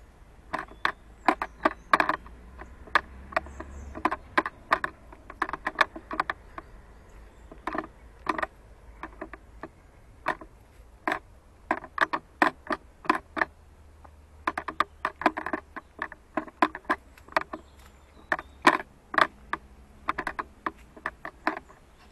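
Handling noise on a handheld 360 camera: irregular sharp clicks and knocks, often several a second in clusters, over a faint low wind rumble.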